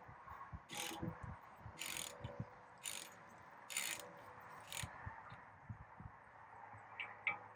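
Hand ratchet clicking in short strokes, about one a second, as it loosens a compression screw on a saw-tooth rivet tool.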